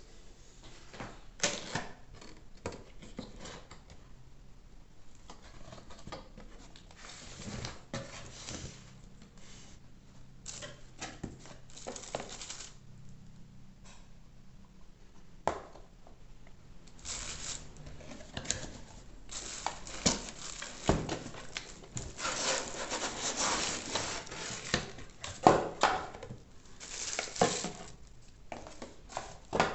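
A box and its packaging being handled and opened by hand: scattered rustling, rubbing, tearing and light knocks, busier and louder in the second half.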